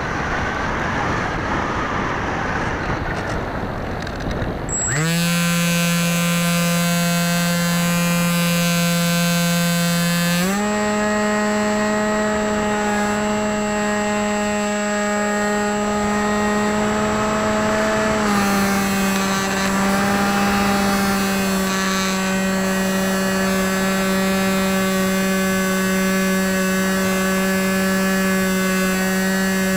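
Air rushing over the onboard camera with no motor tone, then about five seconds in a brushless outrunner electric motor with a 6x4 pusher propeller spins up sharply to a steady buzzing whine. Its pitch steps up around ten seconds in as the throttle opens further, and eases down slightly a little after eighteen seconds.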